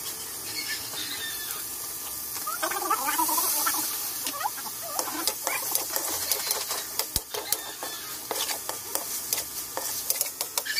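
Metal spatula scraping and clacking against a wok as pieces of pork and liver are stirred and sautéed, with a steady sizzle of frying under many sharp clicks. About three seconds in a brief wavering high call sounds in the background.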